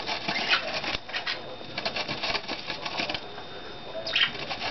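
Rapid dry clicks and scratches in short clusters as a small bird moves about on a styrofoam block, its beak and feet working at the foam.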